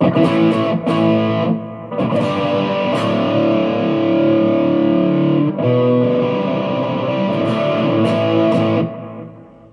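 Electric guitar played through a NUX Plexi Crunch overdrive pedal, giving a crunchy, distorted tone. The playing breaks off briefly about one and a half and five and a half seconds in, and the last notes die away near the end.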